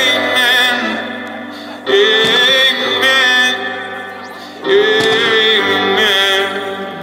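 Music with a singing voice: long held notes with vibrato, new phrases swelling in about two seconds in and again near five seconds.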